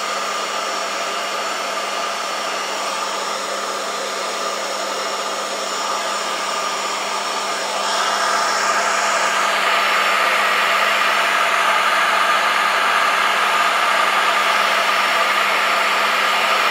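Columbo 5 hp CNC router spindle motor running steadily at about 200 Hz from its inverter: a steady hum under the loud whir of its noisy cooling fan. The sound grows louder about halfway through.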